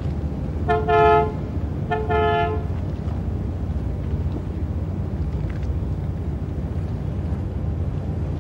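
Two short horn honks about a second apart near the start, over a steady low rumble of traffic and boat engines.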